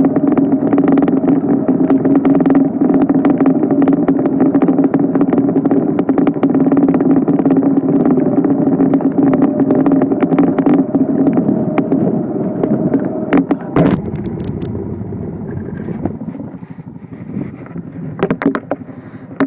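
An engine running steadily with a constant hum. About fourteen seconds in it drops away, with a few sharp clicks, leaving a quieter background.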